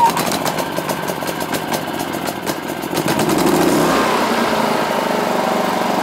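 Small petrol engine of a WAKITA HPG2300is inverter generator catching on the recoil pull with the choke on and running. Its speed and loudness rise about three seconds in, then hold steady.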